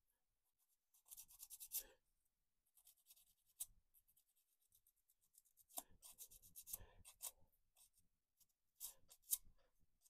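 Small abrasive pad rubbed back and forth over a cast-metal figurehead: faint scratchy strokes in four short bouts with pauses between.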